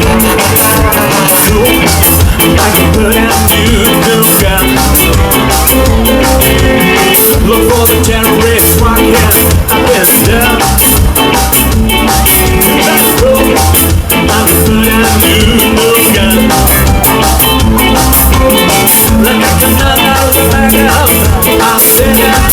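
A live ska band plays an instrumental passage with a steady drum beat and bass, at full volume and without vocals.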